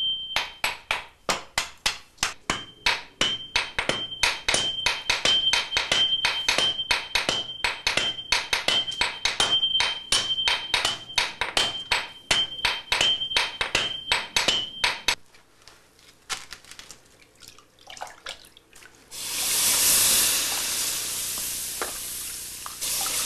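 Hand hammers striking red-hot tamahagane steel, the tekogane plate, on an anvil in a fast, even rhythm of about three blows a second, many blows ringing. The hammering stops about fifteen seconds in. After a few faint knocks comes a steady watery hiss from a pit of clay slurry.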